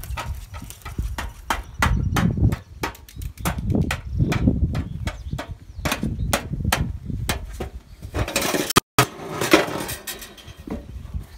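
A toddler tapping and scraping a spoon and a stick in a stainless steel sink: an irregular, rapid string of metallic clicks and knocks over a low rumble.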